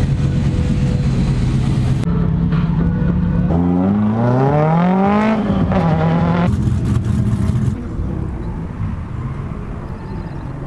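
Car engines running in the pits, with one engine revving up smoothly for about two seconds near the middle, then dropping back to idle.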